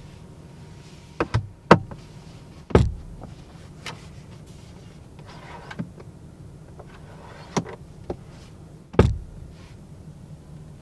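A car sun visor and its vanity mirror cover being handled: a series of sharp clicks and snaps, the loudest about three seconds in and near the end, with a soft brushing in between, over a steady low hum.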